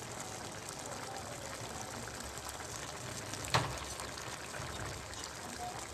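Aviyal, vegetables in coconut gravy, simmering in the pot: faint steady bubbling as its water cooks off, with one sharp click about three and a half seconds in.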